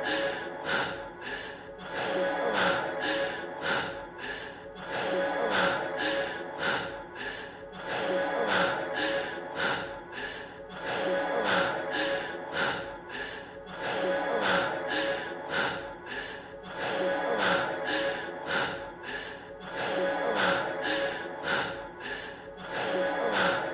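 A man's heavy, breathless panting over the closing music of a rap track, with sustained tones and a steady beat under it. The same short stretch is looped, so the gasping breaths and the music repeat about every two and a half seconds.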